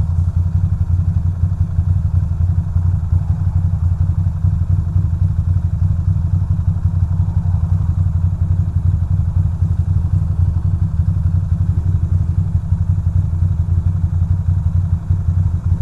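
2006 Ducati Monster 620's air-cooled L-twin engine running steadily at low revs, a deep, even drone with no revving.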